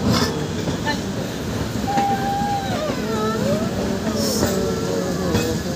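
Indian Railways passenger coaches rolling past close by, with a steady rumble of wheels on the rails. From about two seconds in, thin wavering squeals rise and fall above the rumble.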